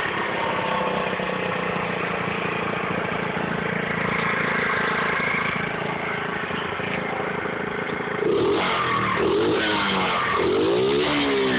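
Small 50cc Chinese pit bike engine running at steady revs, then revved up and down in quick repeated blips from about eight seconds in.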